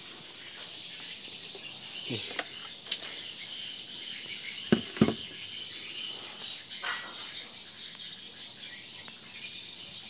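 Steady high-pitched insect chirping in short repeated pulses. A few dull knocks come about two and five seconds in.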